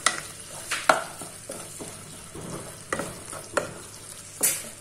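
Wooden spatula stirring thick chicken masala gravy in a nonstick pan: a run of scrapes and sharp knocks of the spatula against the pan, the loudest near the end, over a faint sizzle.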